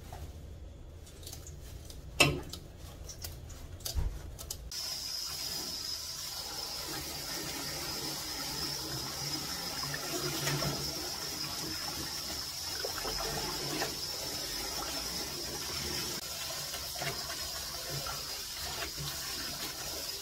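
A few sharp snips of scissors cutting herb stems, then a kitchen faucet turned on about five seconds in and running steadily into a stainless steel bowl as hands rinse the bushclover stems.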